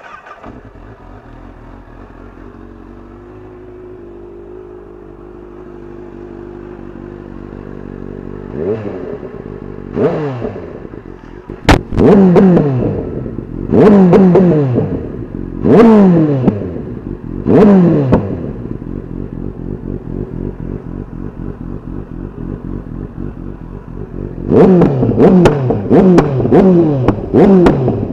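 Honda CBR1000RR Fireblade's inline-four engine idling through an aftermarket slip-on silencer, then blipped about six times, each rev rising sharply and falling away, with a single sharp crack among the early blips. After a few seconds of steady idle comes a quick run of short throttle blips near the end.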